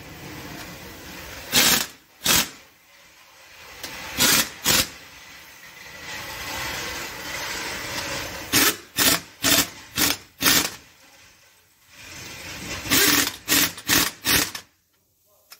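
Pneumatic impact wrench on an air hose, run in short bursts on the nuts of a diesel engine's cylinder head: about fourteen bursts in clusters of two to six, with a steady hiss between them.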